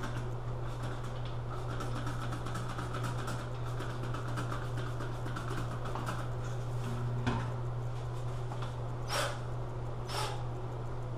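Cordless drill with a 3/4-inch hole saw working into wet porcelain tile, the spot kept wet from a spray bottle: a steady low hum with light scratchy clicks, and two short hissing bursts near the end.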